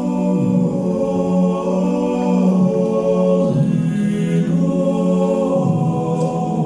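A group of voices singing a cappella in held chords that move to new pitches every second or two.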